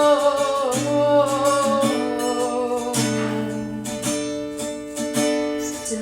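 Acoustic guitar strumming chords through an instrumental break in a song, with a held sung note trailing off in the first second, picked up on a phone microphone.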